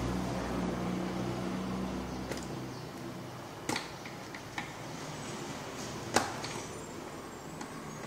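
Screwdriver work on a blender base: several sharp clicks and knocks of the metal tool and screws against the plastic housing and circuit board, the loudest about six seconds in. Under the first three seconds, a low steady hum fades away.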